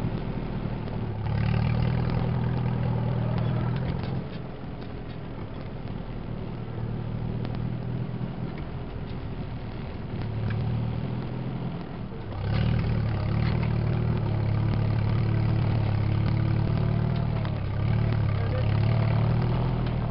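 Farm tractor engine running steadily while pulling a planter across a field. It grows louder for a few seconds near the start and again through the second half.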